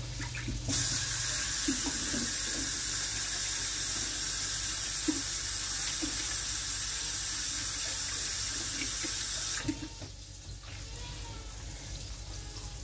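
Kitchen tap running into the sink while fingers are rinsed under it. The water comes on about a second in and is shut off after about nine seconds.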